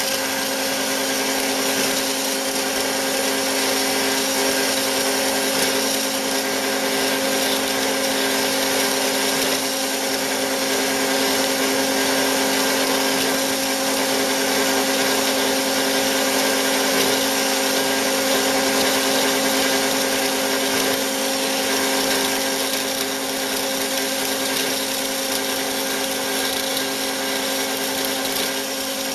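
Bigstone CF450 horizontal bandsaw running steadily with a constant hum, its blade cutting through stock on a 25-degree mitre cut.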